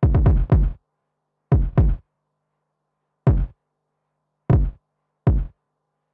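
Electronic beat made in the Music Maker JAM app: sparse drum-machine hits with a deep low end, broken by silent gaps. A quick run of four hits, then two, then three single hits spaced about a second apart.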